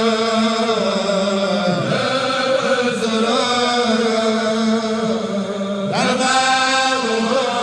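A man's voice chanting a Mouride religious chant in long, drawn-out notes, with the pitch sliding about two seconds in and again near six seconds.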